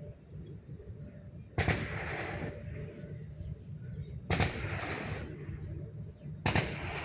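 Three sharp, harsh coughs about two to three seconds apart, each dying away over about a second, from a person with whooping cough (pertussis).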